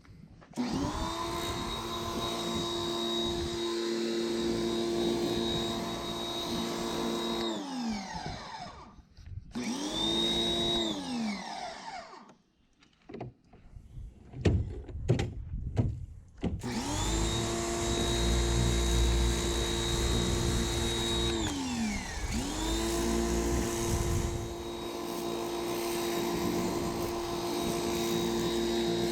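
Electric pressure washer motor whining steadily, winding down when it cuts out and spinning back up when it restarts, several times over. There are a few sharp knocks during a pause about halfway through.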